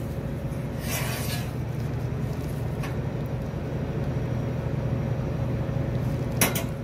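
Steady low machine hum, with a brief rustle about a second in and one sharp clink near the end as a glass espresso shot glass is set down on the espresso machine's metal drip tray.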